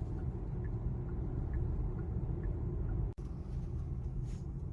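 Steady low road and engine rumble heard from inside a moving car, with faint light ticks about twice a second in the first half and a brief dropout about three seconds in.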